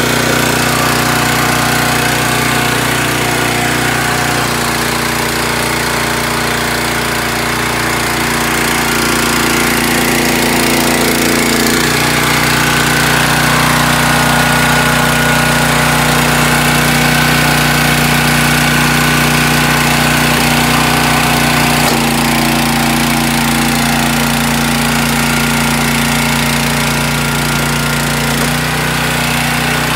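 Small gas engine on a Champion 37-ton log-splitter hydraulic unit running steadily, driving the hydraulic ram that presses one tire inside another. Its note steps up and down several times as the ram works.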